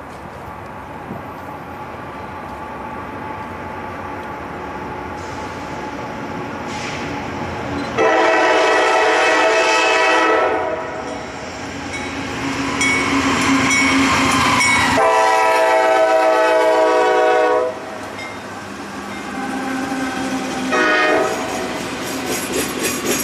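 Norfolk Southern diesel locomotive approaching with a rumble that builds, then sounding its horn: a long blast, a second long blast that drops in pitch as the locomotive passes, and a short blast near the end. Wheels of double-stack intermodal cars click over the rail joints as the train goes by.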